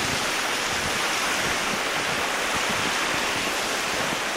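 Steady rushing of a small waterfall and its creek in a snowy canyon: an even, unbroken hiss that holds the same level throughout.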